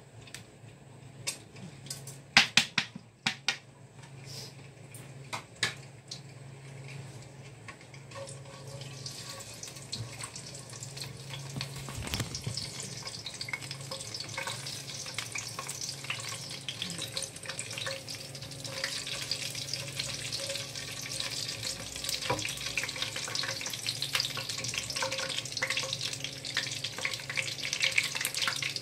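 Whole spices frying in hot oil in a wok, sizzling as they are stirred with a wooden spatula. Several sharp knocks come in the first few seconds, the loudest about two and a half seconds in. The sizzle grows steadily louder from about nine seconds in.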